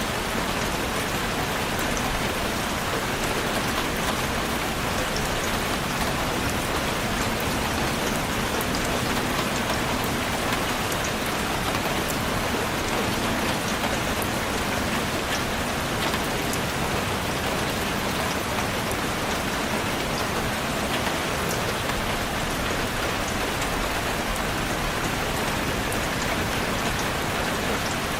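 Steady rain falling on a surface, an even hiss with many fine drop ticks and no letup.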